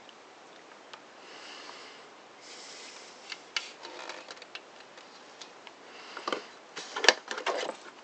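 Small parts of a Makita circular saw being handled and fitted by hand: scattered light clicks that thicken into a quick cluster of sharp clicks and knocks near the end. A couple of sniffs or breaths in the first few seconds.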